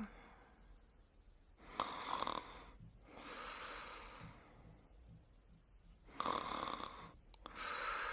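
Snoring in sleep: two slow breaths, each a loud snore about two and six seconds in, followed by a softer, longer breath.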